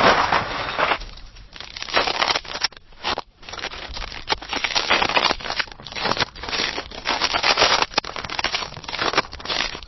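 Footsteps crunching in snow: a run of steps, each a gritty crunch, with short breaks about a second in and again near three seconds in.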